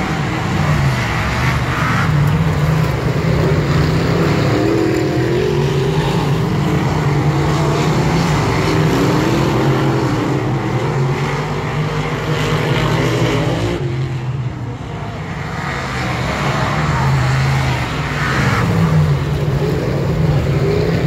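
A pack of dirt modified race cars racing on a dirt oval, their engines rising and falling in pitch as they throttle through the turns. The engine noise dips briefly about two-thirds of the way through, then builds again.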